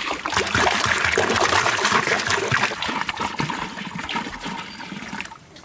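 Water poured in a steady stream from a large plastic water jug into a big metal cauldron, splashing in the pot; the pouring stops about five seconds in.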